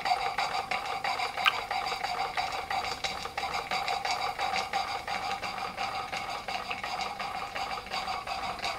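Märklin 16051 twin-cylinder compound stationary steam engine running on live steam with a rapid, even ticking beat, belt-driving a small model water pump whose thin stream pours into a cup. One sharper click about a second and a half in.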